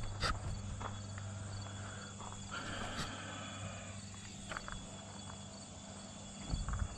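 Field insects chirring steadily over a low, even hum, with a few sharp clicks about three seconds in. Near the end comes a low rumble of movement and handling.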